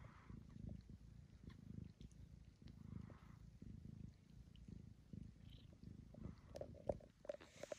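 Mother cat purring faintly as she grooms her newborn kittens, a low purr that swells and fades about once a second. A few soft clicks near the end.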